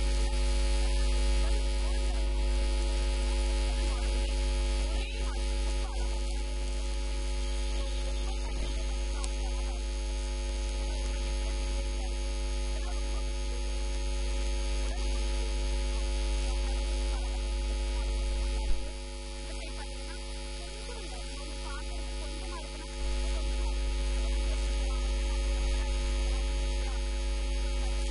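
Steady electrical mains hum: a low drone with a stack of steady overtones above it. About two-thirds through there is a brief click, and the hum then drops in level for about four seconds before coming back.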